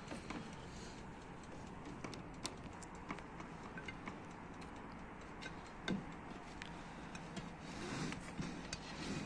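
Faint scattered clicks and light knocks of baked buns being lifted off a metal baking tray and set down on a plate, with one sharper knock about six seconds in and a short rustle of handling near the end.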